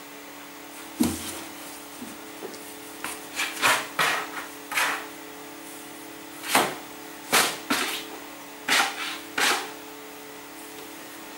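A cat's paws batting and scraping at cardboard boxes and a wooden shelf: a knock about a second in, then a string of short scratching and scuffing noises, several close together, over a faint steady hum.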